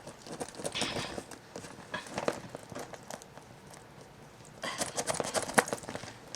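Light, irregular clicks and taps from a phone being handled and tapped through setup screens, growing busier near the end.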